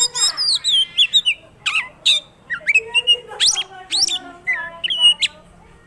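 Oriental magpie-robin (kacer) singing vigorously: a fast, varied string of whistled notes, rising and falling glides and harsh squawky calls that make up its mimicked repertoire. The song stops about five seconds in.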